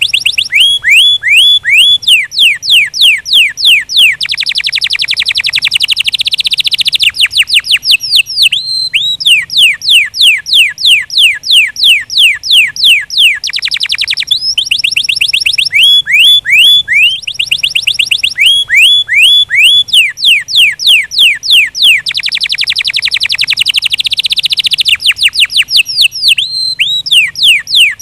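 Domestic canary singing: long runs of quick sweeping whistled notes, several a second, changing from one repeated phrase to the next. Twice it breaks into a much faster rolling trill.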